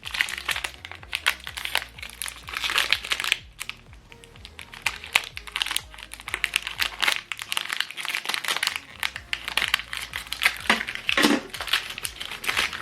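Packaging of an HP 305 black ink cartridge crinkling and rustling in irregular bursts as it is handled and opened.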